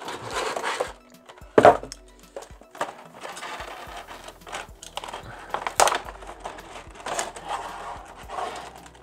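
Cardboard shipping box and plastic packaging being handled: uneven rustling and crinkling with several sharp knocks, the loudest about a second and a half in.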